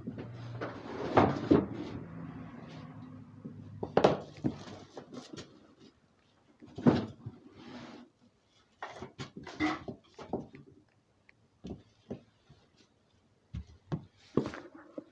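Irregular knocks and clatter of objects being handled, the loudest about a second in and again about four seconds in, with a low hum underneath for the first few seconds.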